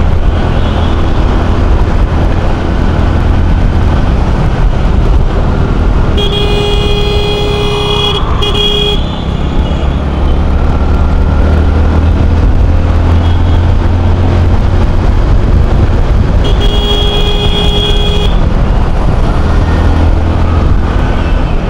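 Steady wind and engine rumble of a motorcycle ride in city traffic, with a vehicle horn sounding in two long honks: one about six seconds in and another about sixteen seconds in.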